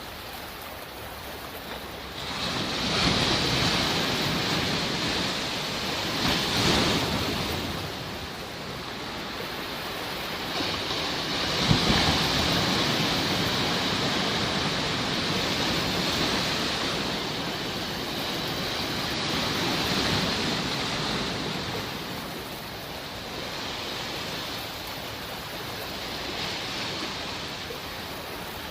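Sea waves washing ashore in slow surges that swell and fall back every few seconds, with one sharper crash a little before the middle.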